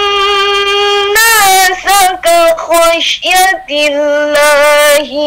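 A young woman's solo voice reciting the Qur'an in melodic tartil style. She holds long notes and winds through ornamented turns between them, with short breaks about three seconds in.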